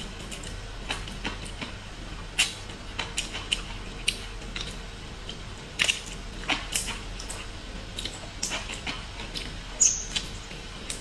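Close-up eating sounds as seafood is eaten: irregular wet clicks, smacks and crunches, a few of them sharply louder, and one brief high squeak near the end.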